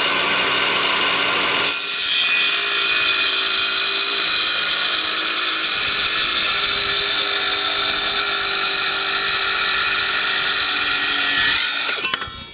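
Cordless Milwaukee circular saw cutting a metal plate: a loud, steady, high-pitched whine that shifts in pitch about two seconds in and keeps running for about ten seconds. It winds down just before the end.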